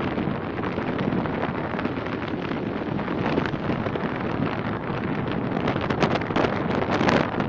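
Sea waves washing and breaking over the boulders of a rock breakwater, with wind buffeting the microphone; it swells louder near the end.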